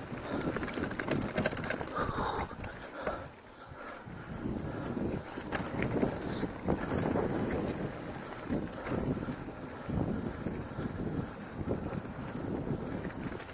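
Mountain bike riding over a dirt singletrack trail: tyre noise on the dirt and the chain and frame rattling over bumps, with a short quieter stretch about three seconds in.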